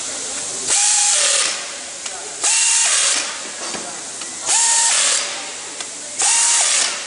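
Pneumatic wrench on an air hose running in four short bursts, each with a loud rush of air and a rising whine, as it drives nuts on the studs of a truck axle hub. A steady air hiss fills the gaps between the bursts.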